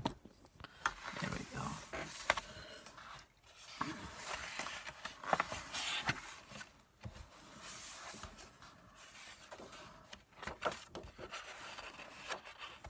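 Handling noise: irregular rustling and scraping with scattered sharp clicks, as objects such as the camera or the book are moved about.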